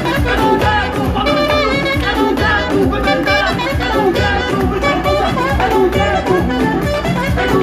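Loud live concert music: a male singer performing into a microphone over a band with a heavy, continuous bass.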